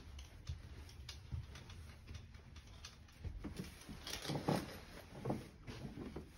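Soft footsteps and the rubbing and tapping of the handheld phone as someone walks through an empty apartment, a scatter of light taps and thumps that get louder and busier in the second half.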